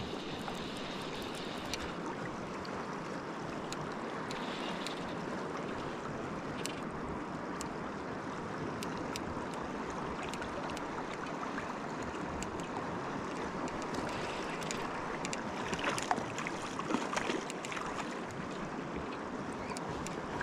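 Steady rush of flowing river water, with a few sharper splashing or knocking sounds near the end.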